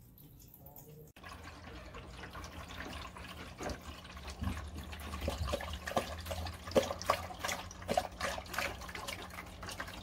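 A dog lapping water from a PetSafe Drinkwell pet fountain: quick, irregular splashes, a few a second, over the fountain's falling stream and a steady low pump hum.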